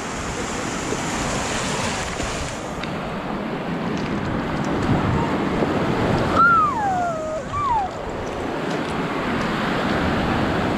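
Sea surf washing steadily onto the shore. About six seconds in, a high call slides sharply down in pitch, followed by a second, shorter falling call.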